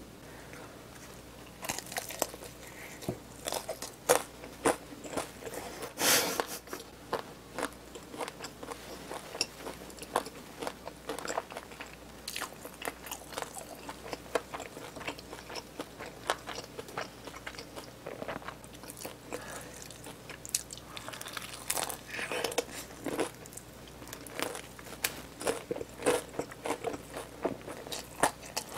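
Close-miked crunching and chewing of a BHC Bburinkle fried chicken drumstick with a crisp, seasoning-dusted coating: many sharp crunches in quick succession, starting about a second and a half in.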